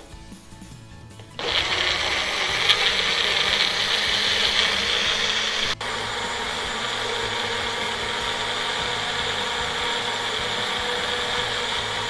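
Bullet-style personal blender running steadily at full speed, puréeing boiled beetroot with water. It starts about a second and a half in, drops out for an instant about halfway, and runs until the very end.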